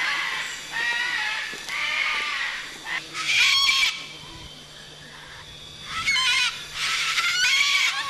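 Moluccan cockatoo giving a series of harsh screeches, each under a second, with a pause of about two seconds in the middle.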